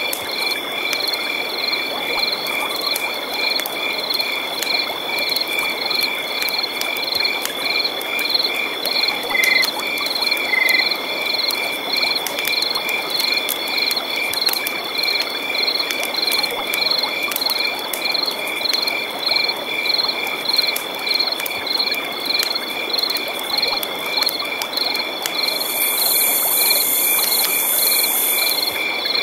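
Night forest ambience by a river: frogs and insects calling together, a steady high trill under evenly repeated high chirps at about two or three a second, over a steady rush of running water. A shrill high buzz joins in for the last few seconds.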